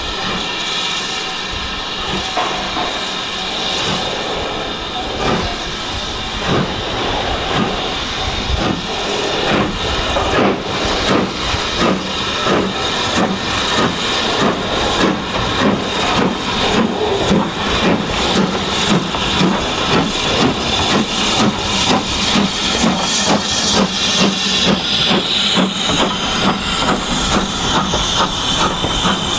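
BR Standard Class 4MT 2-6-0 steam locomotive No. 76017 starting away with its train. A steady hiss of steam gives way a few seconds in to its exhaust beats, which come steadily quicker as it gets under way. Its coaches roll past near the end.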